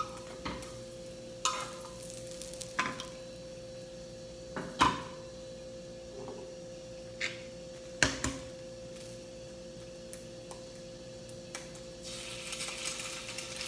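Scattered sharp clicks and knocks of utensils and eggs being handled at the counter, over a faint steady hum. About twelve seconds in, frying starts to sizzle as the egg goes into the hot pan.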